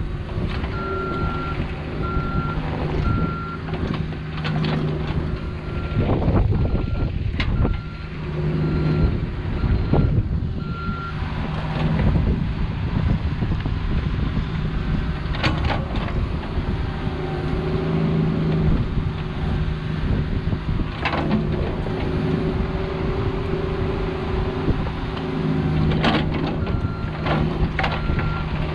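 Cat 304 mini excavator's diesel engine running under load during trenching, with scattered knocks from the digging, while a backup alarm beeps steadily for the first ten seconds or so and starts again near the end.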